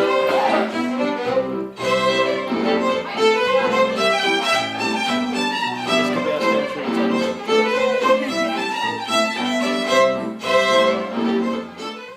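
Background music led by fiddle with bowed strings, a lively tune over a low bass line, which fades out right at the end.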